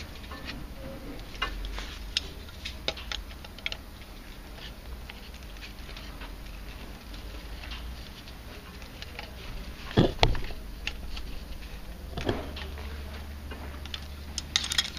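Scattered light clicks and taps of hands and a screwdriver working on a plastic circulation pump housing, screwing its parts back together, with a louder knock about ten seconds in.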